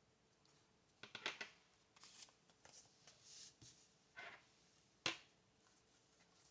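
Planner stickers being peeled off their sheet and pressed onto paper: scattered short paper crackles and taps, the sharpest about five seconds in.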